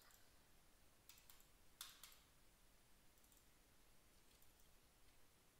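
Faint computer mouse clicks over quiet room tone, a few in quick pairs about one and two seconds in and a couple more later.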